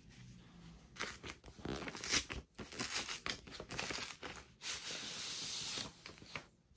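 Paper mailer envelope being torn open and handled, with irregular tearing and crinkling of paper, then a longer steady rustle as a cardboard stiffener slides out of it.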